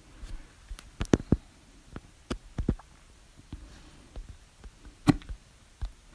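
A person hiccuping: a quick group of short, sharp hics about a second in, a few more between two and three seconds, and the loudest single hic about five seconds in.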